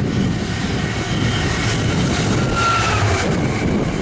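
Freightliner Class 66 diesel locomotive's EMD two-stroke V12 engine running steadily as it passes beneath, hauling an intermodal container train, followed by the rumble of the container wagons rolling on the rails.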